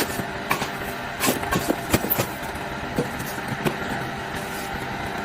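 A steady motor hum with scattered short clicks and knocks over it.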